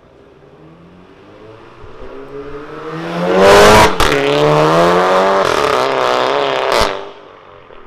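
VW Scirocco 1.4 TSI turbocharged four-cylinder with a Varex valved aftermarket exhaust accelerating hard past. The exhaust note rises and is loudest as the car goes by, breaks briefly like a gear change just before four seconds in, then carries on. Near the end it cuts off with a sharp crack as the car pulls away.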